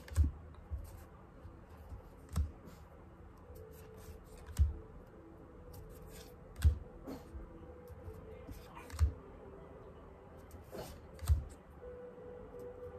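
Tarot cards being handled one at a time: six short, sharp card clicks about every two seconds as each card is moved from the front of the deck to the back.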